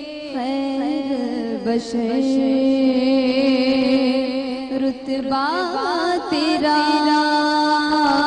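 A woman singing a slow, drawn-out devotional melody into a microphone, her voice bending and holding notes over a steady drone underneath.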